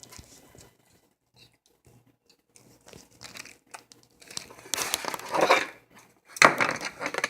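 Plastic food packaging crinkling and tearing, faint at first and then in two loud bursts in the second half.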